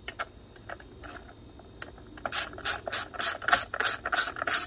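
Small hand ratchet with a screwdriver bit driving a screw into a lawnmower's plastic recoil starter cover. After a few scattered clicks, it ratchets in quick back-and-forth strokes from about two seconds in, about four clicking strokes a second.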